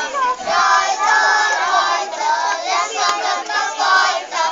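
A group of young children singing a song together in chorus, in held notes broken into short phrases.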